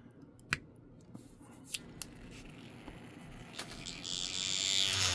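A few small clicks as a square glass paint bottle is pushed into the holder of a handheld cordless paint shaker. About four seconds in the shaker's motor starts and it buzzes as it vibrates the bottle.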